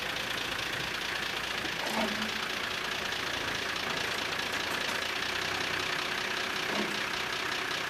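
Nissan Y60 Safari's diesel engine idling steadily.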